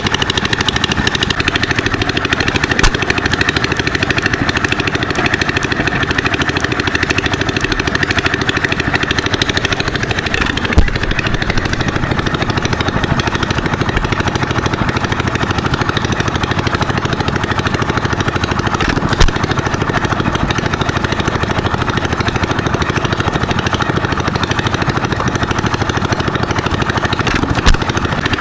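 Antique vertical single-cylinder hit-and-miss gas engine, a Foos Scientific, running steadily amid a dense din of engines. Sharp pops come about every eight seconds.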